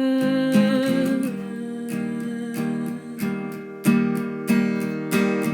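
Acoustic guitar playing chords in a song, with a sung note held and wavering through the first second before the guitar carries on alone with sharp strums.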